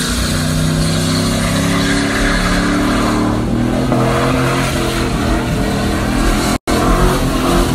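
Car engine revving hard at high rpm during a burnout, with a hiss of spinning tyres. The sound drops out for an instant near the end.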